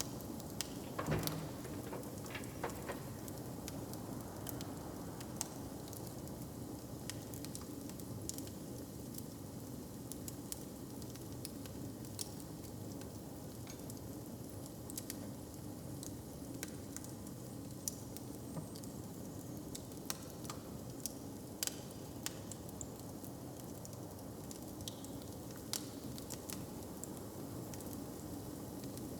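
Wood fire burning in a hearth: a steady crackle with scattered sharp pops, a louder burst of pops about a second in.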